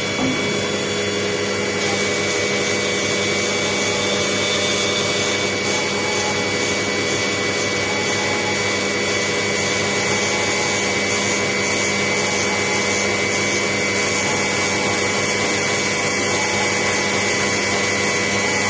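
CNC vertical machining centre running a cut, a steady even machining noise with a constant high tone over it.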